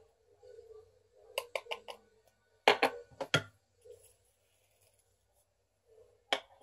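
Quick light taps and clicks of a makeup brush being knocked against a loose-powder foundation jar: a run of four quick taps, a few louder knocks a little later, and two more near the end.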